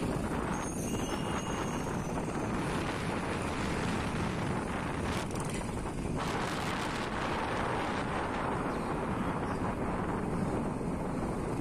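Steady wind rush on the microphone over the engine and tyre noise of a moving motorbike.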